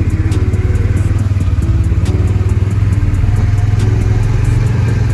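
A vehicle engine running steadily close by, with a fast, even pulsing beat.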